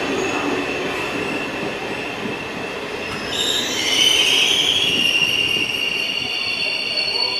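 Regional passenger train's coaches rolling slowly past a platform as the train brakes into the station, the wheels and brakes squealing high over the rumble of running gear; the squeal grows louder and higher about three seconds in.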